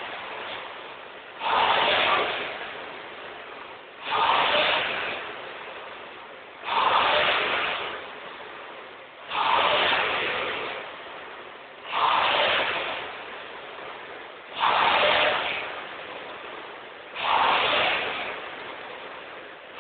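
Rowing ergometer's fan flywheel whooshing with each drive stroke: seven strokes about two and a half seconds apart, each rising sharply and then fading as the flywheel coasts through the recovery.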